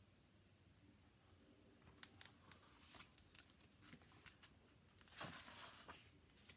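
Near silence with faint handling of a large picture book's pages: a few light taps, then a soft paper rustle near the end as a page is turned.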